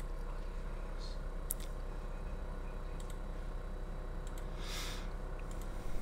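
A few faint computer mouse clicks over a steady low electrical hum, with a short airy hiss near the end.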